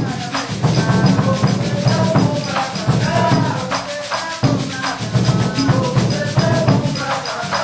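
Pandeiro and shaker playing a fast, steady coco rhythm by hand: jingles rattling on every stroke over deep thumps of the drumhead.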